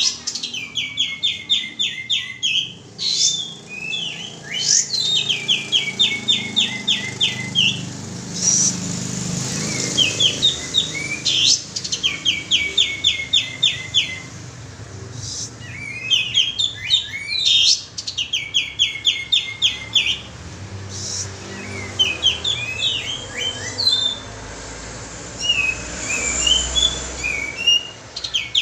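Pied triller (kapas tembak) song used as a lure call: repeated runs of about ten quick, evenly spaced high notes, each run lasting about two seconds and coming back every three to four seconds, with shorter scattered chirps between.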